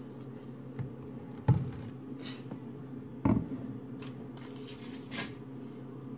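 Two sharp knocks about two seconds apart, with a few lighter clicks and rustling, as things are handled at a kitchen counter beside a toaster, over a steady low electrical hum.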